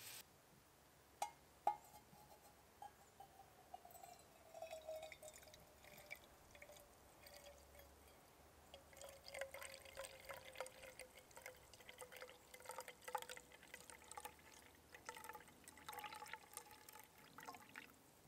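Cowboy coffee poured from a stainless steel pot into an enamel mug: a faint trickle and dripping of liquid, with a thin tone that slowly falls in pitch. Two sharp metal clinks come a little over a second in.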